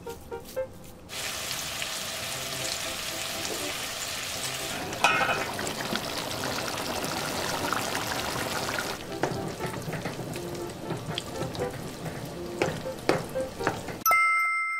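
Hamburger steaks sizzling in a frying pan: a dense, steady hiss that drops after about eight seconds to a softer crackle with scattered pops. Near the end comes a brief two-note chime.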